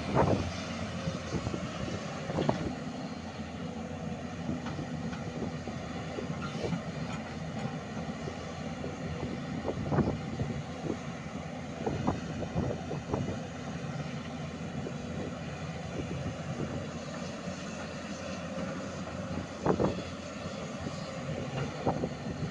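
Hyundai 210-7 crawler excavator's diesel engine running steadily, with a few short knocks from the machine at work.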